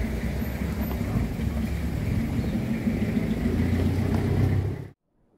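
A steady low rumble with a haze of background noise, cutting off abruptly near the end.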